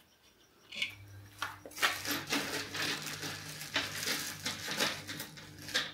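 Light metallic clinks and rattles of small screws, nuts and washers being handled, over a steady low hum that starts about a second in.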